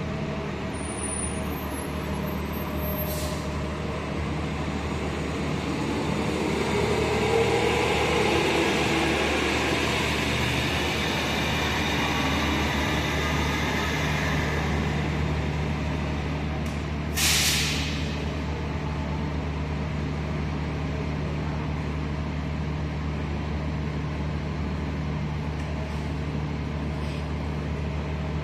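City transit bus pulling away, its engine and drivetrain whine rising in pitch over a few seconds, then running on steadily under a concrete roof. About seventeen seconds in comes one short, sharp air brake hiss.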